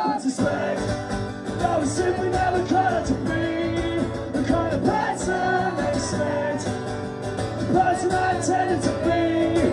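Live solo acoustic performance: a steel-string acoustic guitar strummed steadily under a man's singing voice, amplified through the room's PA.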